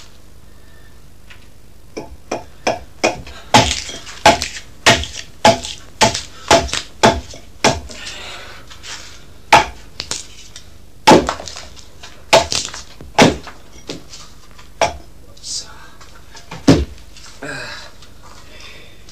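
Hand axe chopping into a wooden block being hewn into a drum body: a long run of sharp blows, roughly two a second, with short pauses, the last few more spread out.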